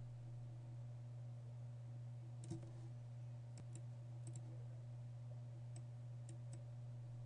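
Computer mouse clicking about eight times, some in quick pairs, the first and loudest about two and a half seconds in. A steady low electrical hum runs underneath.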